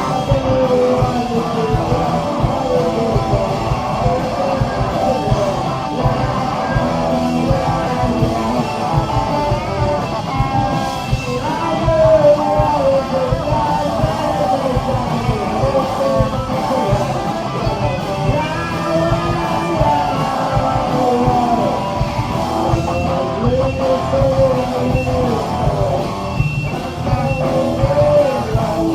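Live rock band playing loud and continuously: guitars and drums with a singing voice over them.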